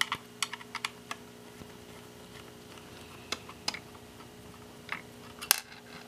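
Screwdriver clicking against the small screws of a laptop hard drive caddy as they are backed out: a quick run of sharp clicks in the first second, then scattered clicks later, the loudest near the end. A faint steady hum lies underneath.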